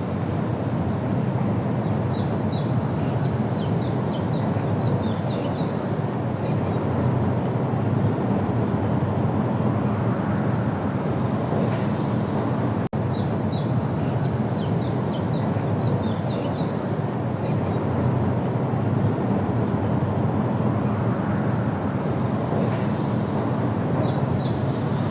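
Outdoor ambience of a steady low rumble, with a small songbird singing a quick phrase of high notes. The phrase comes twice in full and starts a third time near the end. Near the middle the sound cuts out for an instant.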